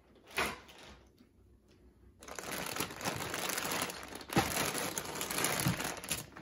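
Clear plastic parts bags crinkling as a hand grabs a heavy bag of kit parts and pulls it out of the box. There is a brief rustle about half a second in, then steady crinkling and rustling from about two seconds in.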